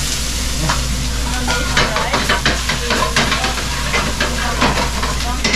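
Food sizzling in a frying pan on a gas stove while a utensil stirs it, with quick repeated scrapes and clacks against the pan over a steady frying hiss.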